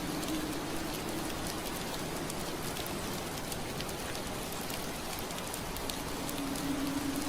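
Steady rain pattering on a window pane, with many small sharp drop ticks. A low steady hum runs under it, fading out within the first second and coming back about six seconds in.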